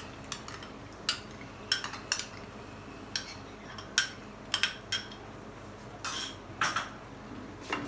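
Irregular clinks and knocks of a glass bowl and a wooden spatula against a wok as yogurt is tipped and scraped in. There are about a dozen short, sharp taps, with a slightly longer scrape about six seconds in.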